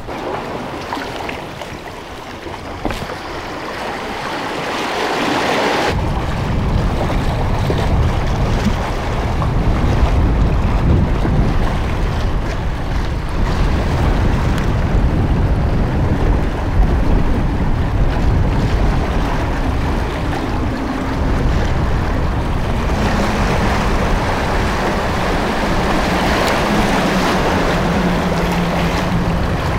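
Sea waves washing and splashing against the concrete tetrapods at the foot of a breakwater, with wind buffeting the microphone. The sound starts quieter and jumps up abruptly about six seconds in. A low steady hum joins near the end.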